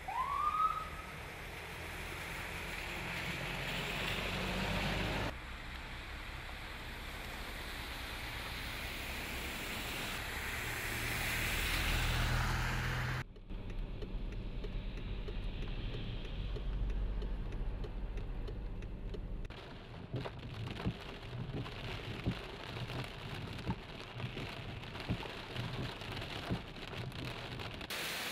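A car driving through floodwater, its engine rumbling under the hiss and splash of water thrown up by the wheels. From about two-thirds of the way in, heavy rain falls, with many separate drop hits over a steady hiss.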